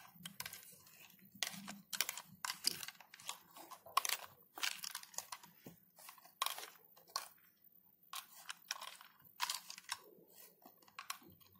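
Chrome hand-held shower head being screwed by hand onto the nut of its flexible metal hose: faint, irregular clicks and scrapes of the threaded fitting and the ribbed metal hose, with a short pause a little past the middle.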